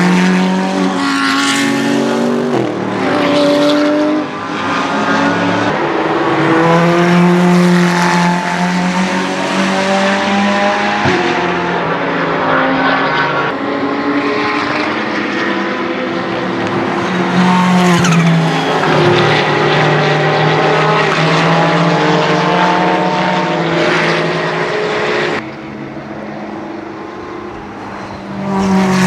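Ferrari 488 GT3 EVO's twin-turbo V8 at racing speed, its pitch repeatedly climbing and dropping through upshifts and downshifts. Several short passages are joined by sudden cuts, and the engine is quieter for a few seconds near the end.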